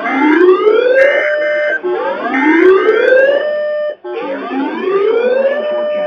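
Weather alert radios sounding their alarm: a rising siren-like whoop over and over, about every second and a half, with short steady beeps layered over the first few whoops and a brief break about four seconds in.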